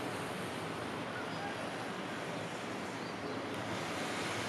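Steady wind noise on the microphone over a distant outdoor hum of road traffic.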